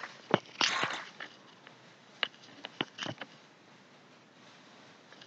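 A handful of sharp computer mouse clicks, most of them between about two and three seconds in, with a short rushing noise about a second in.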